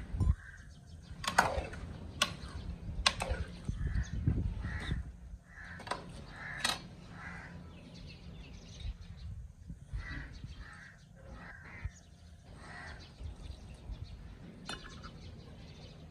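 Birds calling over and over, with a few sharp clinks of a metal ladle against a cooking pot, mostly in the first few seconds.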